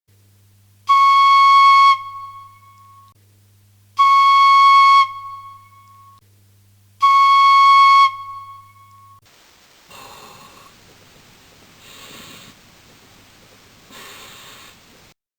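Yamaha training fife playing three clear, steady notes on the same pitch, each about a second long with a short ringing tail. It then gives three breathy blows that are mostly air with hardly any note, the airy sound of a poor embouchure.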